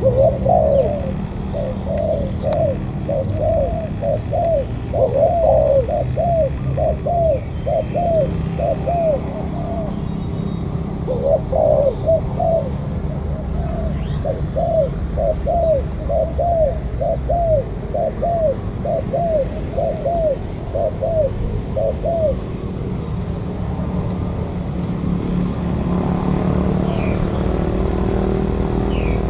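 Spotted dove cooing: a long run of short, low, arched coos at about two a second, broken by a brief pause partway through and stopping well before the end. Faint high chirps of small birds and a steady low rumble lie underneath.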